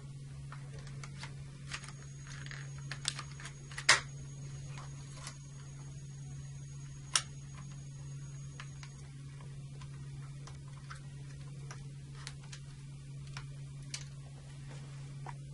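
Scattered small clicks and taps of plastic circuit-breaker accessory parts being handled and pressed together, with a sharper snap about four seconds in as a module locks into the plastic accessory tray. A steady low hum runs underneath.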